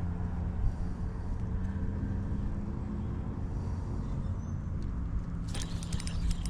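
Small boat motor running steadily with a low hum. Near the end comes a quick run of sharp clicks.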